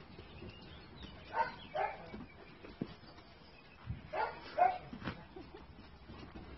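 Young Dalmatian barking: two quick barks about a second and a half in, then two more about four seconds in, with a few light knocks in between.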